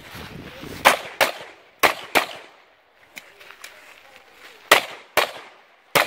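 9mm Glock 34 pistol fired in quick pairs, each a double-tap about a third to half a second apart. There are two pairs close together, a pause of about two seconds with only faint clicks, another pair, and then a single shot near the end.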